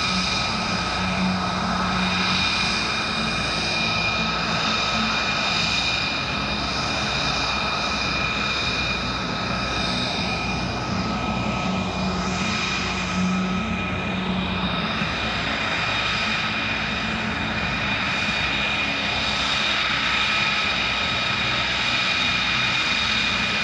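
Steady whine of an aircraft engine running, several high steady tones over a low hum and a rushing hiss; one of the tones fades out about halfway through.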